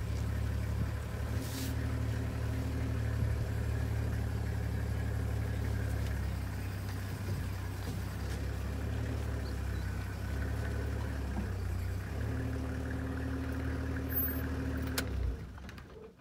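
Safari vehicle's engine running steadily as a low hum, then switched off near the end.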